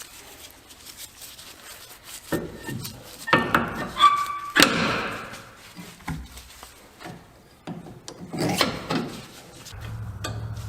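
Scattered knocks, clatter and scraping of tools and parts being handled, with a ringing metal clink about four seconds in. A steady low hum starts near the end.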